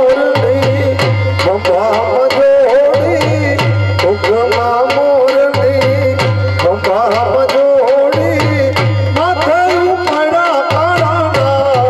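Gujarati folk music for raas dancing: a wavering, ornamented melody over a steady drum beat with regular sharp percussion strokes.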